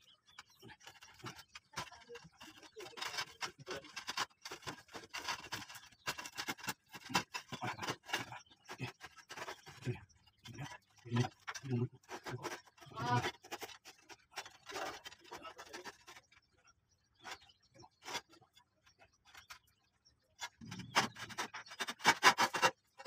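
Irregular scraping, clicking and rubbing of hands working at the roof tiles and stainless steel tie wire overhead, with a denser, louder stretch of scraping near the end.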